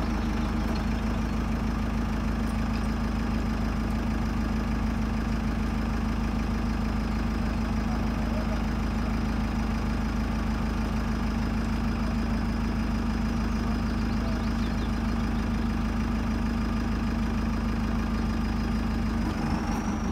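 JCB backhoe loader's diesel engine idling steadily, with a faint high whine above it.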